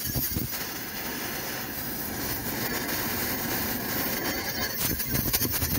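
Oxy-acetylene cutting torch fitted with a wash tip, running with a steady rushing hiss as it washes a welded bed hinge off a steel truck frame. A few sharp pops sound near the start and again about four seconds in.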